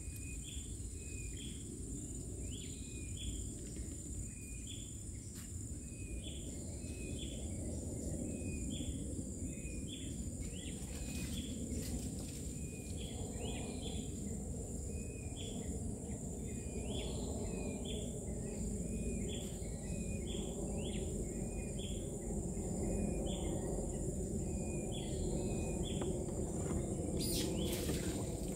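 Forest ambience: a steady high insect drone, with a short chirping call repeating about once a second over a low, steady rushing noise. A brief sharp noise comes near the end.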